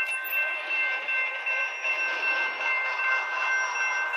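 Railroad grade-crossing bell ringing in quick repeated strikes, about two to three a second, while the gate arm lowers. Underneath is the rushing noise of an approaching train, picked up by the camera's built-in mic.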